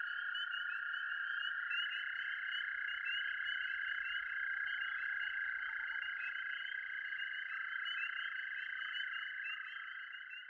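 A dense chorus of calling frogs: a steady massed calling with quick repeated chirps over it, fading down near the end.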